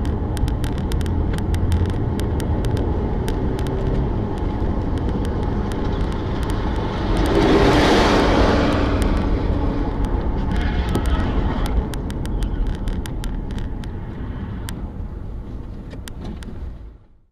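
A car driving, with steady engine and road rumble and scattered light clicks throughout. A louder rush of noise swells and fades about eight seconds in, and the sound cuts off near the end.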